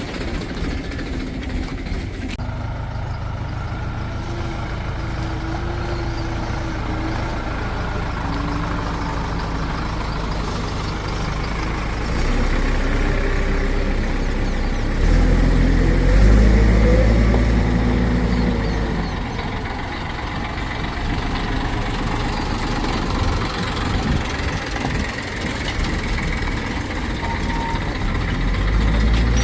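Diesel engine of heavy farm or digging machinery running steadily, revving up and working harder for a few seconds past the middle before settling back.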